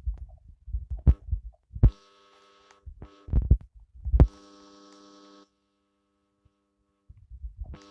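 ASMR tapping and handling sounds close to the microphone: irregular low thuds and a few sharp taps, with a steady electrical buzz that switches on and off between them, then a brief near-silent gap before the thuds resume near the end.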